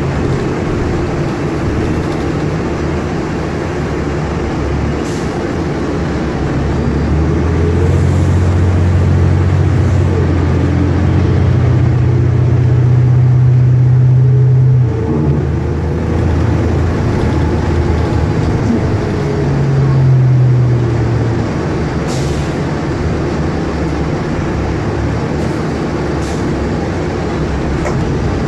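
Cabin sound of a 2012 New Flyer Xcelsior XN40 city bus under way, its Cummins Westport ISL G natural-gas engine pulling. The engine note builds for several seconds, drops suddenly about halfway through, swells briefly again and then eases off.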